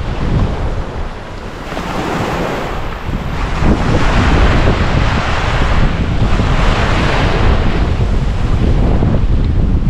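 Ocean surf washing onto a beach in repeated swells, with wind buffeting the microphone as a steady low rumble.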